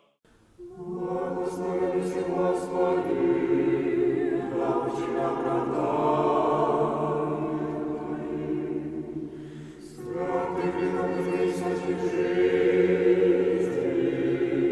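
Choir singing unaccompanied chant in long held chords, in two phrases with a brief dip between them about ten seconds in.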